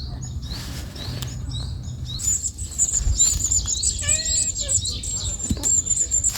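Small birds chirping, with many short quick rising chirps and a high thin trill joining in about two seconds in.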